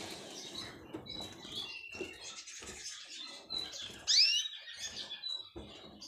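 Canaries chirping in short, thin, high calls, with one louder swooping call about four seconds in. Under it are soft rustles and light knocks from a woven nest being moved about in a cage.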